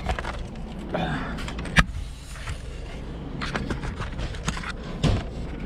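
Handling noise of a small camera being moved and repositioned: rustling and scuffing, a sharp click about two seconds in and a thump near the end, over a low rumble.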